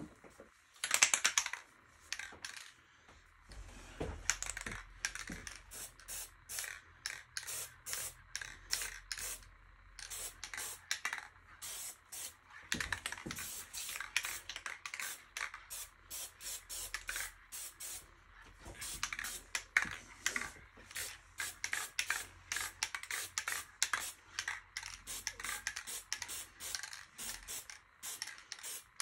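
Aerosol spray paint hissing in many short bursts, several a second, over a faint low hum that starts a few seconds in and stops near the end.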